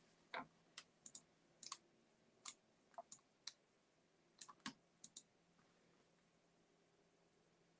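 Near silence broken by a scattering of faint, irregular clicks, about a dozen of them, ending about five seconds in.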